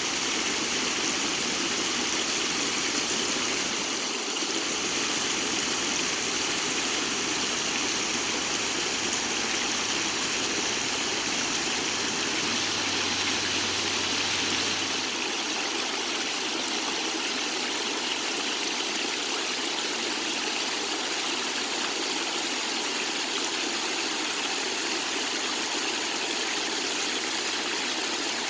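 Spring-fed stream water running and splashing, a steady, even rush.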